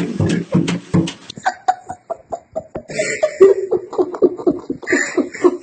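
Rapid repeated thumps for the first second, then a person laughing in quick short bursts with breathy gasps.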